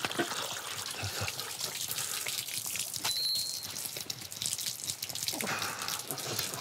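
Water splashing and dripping from cooked noodles in a stainless steel colander as they are rinsed in cold water and then shaken to drain.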